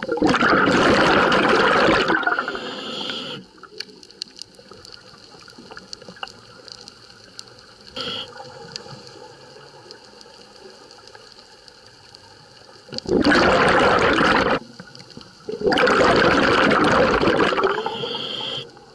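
A scuba regulator's exhaust bubbling as the diver breathes out underwater, heard in three loud bursts of bubbles lasting a few seconds each: at the start, about thirteen seconds in, and again about fifteen seconds in. A softer steady hiss lies between them.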